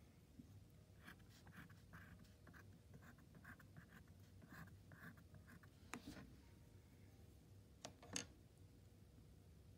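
Faint scratching of a wooden stylus etching through oil pastel on paper, in short strokes about two a second, which stop about five seconds in. A few light clicks follow near the end.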